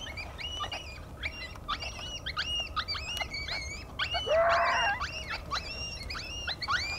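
A chorus of coyote yips and short howls, many high voices overlapping at a few calls a second, with one louder, lower call that rises in pitch about four seconds in.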